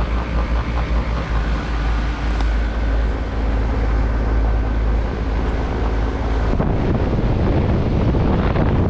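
Carrier and Goodman outdoor HVAC units running together: a steady compressor hum under the rush of the condenser fans. About six and a half seconds in the sound turns rougher and gustier, like fan air blowing across the microphone.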